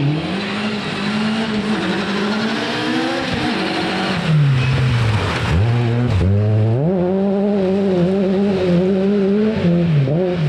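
Rally car engine running hard at high revs. The revs fall away a little past the middle as it slows, then it pulls hard again and holds high revs to the end.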